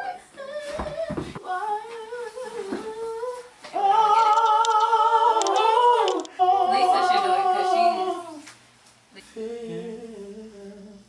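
Voices singing and humming a melody a cappella, with long wavering held notes, loudest in the middle and quieter after about nine seconds.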